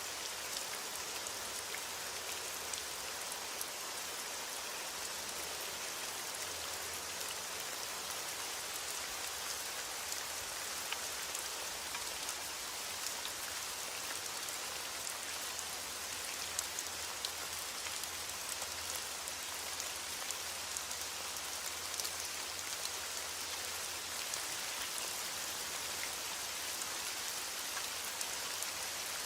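Steady rain falling, an even hiss of rain with scattered individual drop ticks.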